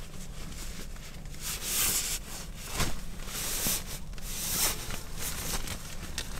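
Irregular rustling noises in several bursts of about half a second to a second, with a few sharp clicks, over a steady low rumble.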